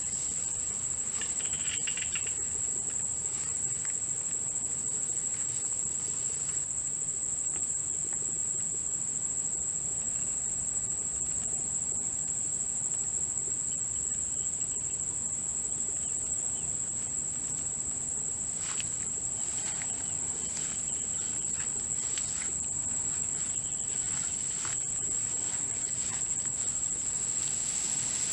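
Insects, likely crickets, trilling in one steady, unbroken high-pitched chorus, with a few faint ticks and rustles here and there.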